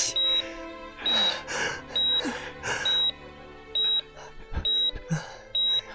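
Hospital heart-monitor sound effect beeping steadily, one short high beep a little under once a second, over soft background music.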